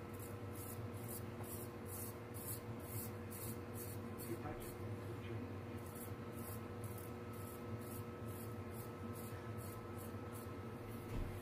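Straight razor scraping through lathered stubble in quick, short strokes, about three a second, with a pause of a couple of seconds midway.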